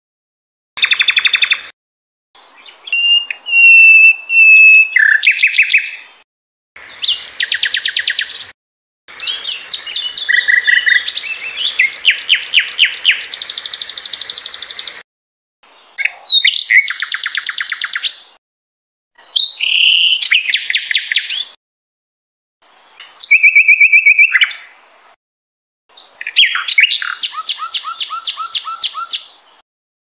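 Sikatan londo singing: a string of separate phrases, each a second or two long, of fast trills and chattering notes mixed with pure whistled notes, with short pauses between phrases.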